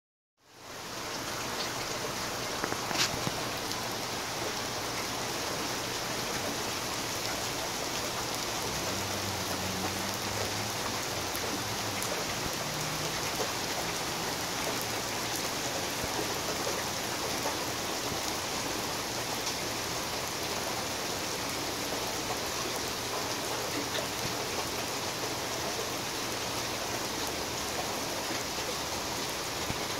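Steady rain falling during a thunderstorm, a constant hiss with scattered sharper drop hits. It fades in over the first second.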